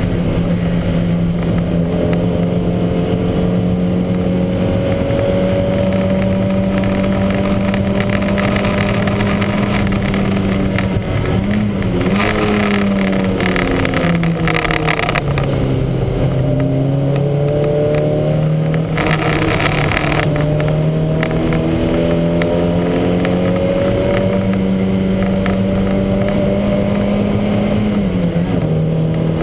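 Lancia Montecarlo race car's engine running hard at steady high revs, dropping in pitch about eleven seconds in and slowly climbing back, with two stretches of louder rushing noise. The car was racing with a huge misfire.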